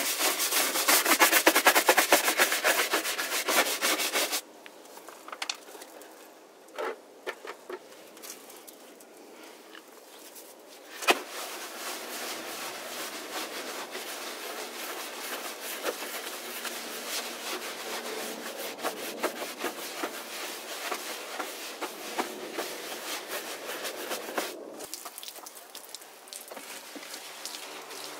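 Stiff detailing brush scrubbing a wet, soapy plastic wheel arch liner: rapid scratchy bristle strokes, loudest for the first four seconds, sparse for a while, then steady scrubbing again from about eleven seconds in, easing near the end.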